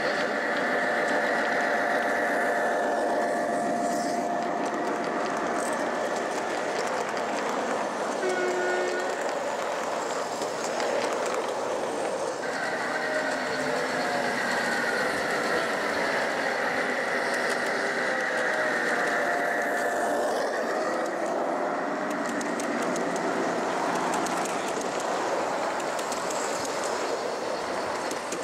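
Gauge 1 (1:32 scale) model trains running on a large layout, giving a continuous rolling rumble with a high whine that drops out about three seconds in and comes back about twelve seconds in. A brief horn sound comes about eight seconds in.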